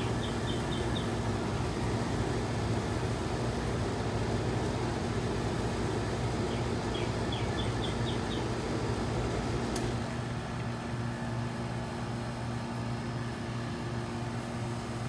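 A steady low electrical hum over a broad rushing background. The rushing drops a little after a sharp click about ten seconds in. A quick run of short high chirps comes near the start and again around seven seconds.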